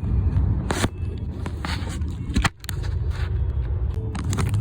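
Steady low rumble of road noise inside a moving car's cabin, with scattered clicks and scrapes close by. The rumble briefly drops out about two and a half seconds in.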